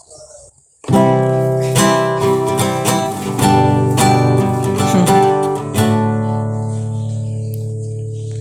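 Acoustic guitar strummed: a run of chords starting about a second in, about two strums a second, then a last chord left to ring out and fade.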